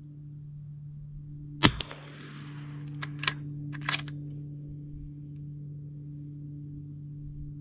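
A single suppressed 300 Blackout rifle shot from a Q Mini Fix bolt-action rifle about a second and a half in, with a short decaying echo. A few sharp metallic clicks follow over the next two seconds as the bolt is worked for the next round.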